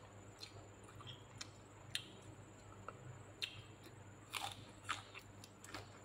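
A person biting and chewing food with raw pok choy leaf, close to the microphone: a string of short crisp crunches and mouth clicks, the loudest about two seconds in and a cluster between four and five seconds.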